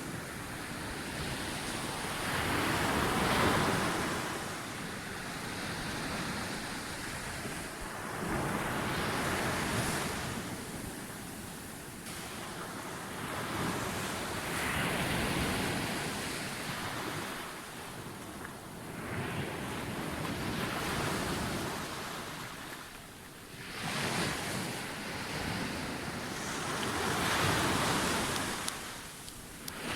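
Ocean surf breaking and washing up a beach. The rush of water swells and fades in waves about every five seconds.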